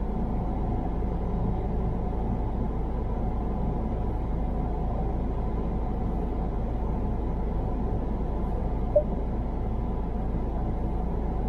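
Steady rumble of a car's engine and tyres, heard from inside the cabin while driving, with one short blip about nine seconds in.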